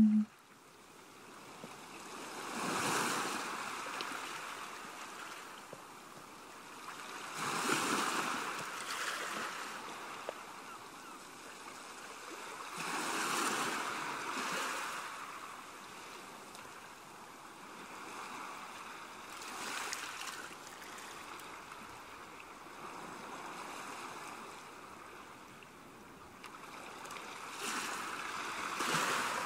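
Waves washing onto a shore, each swell rising and falling away, one every five or six seconds.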